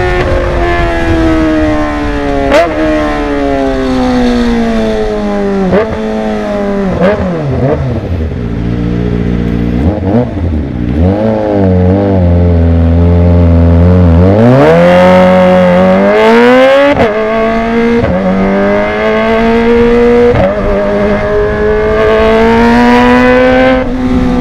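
Kawasaki ZX-25R inline-four with a Villan Z1 underbelly exhaust, running loud. Its pitch falls steadily with a few short blips as it slows and sits low around the middle. Then it rises sharply under throttle and climbs slowly again toward the end.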